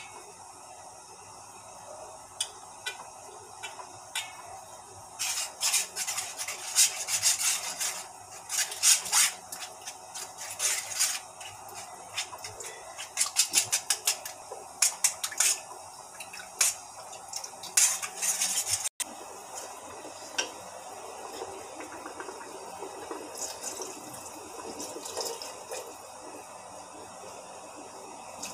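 Steel spoon stirring flour into water in an aluminium pan, clinking and scraping against the metal in quick, irregular strokes. The clinking thins out about two-thirds of the way through.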